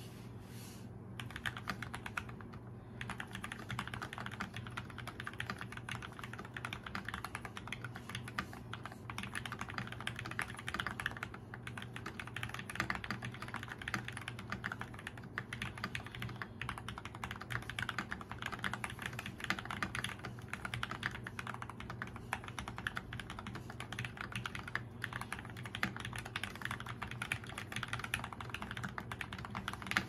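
Typing on an FL-Esports MK870 tenkeyless mechanical keyboard with lubed Gateron Milky Yellow linear switches, PBT Cherry-profile keycaps and foam and tape mods: a fast, continuous run of keystrokes starting about a second in.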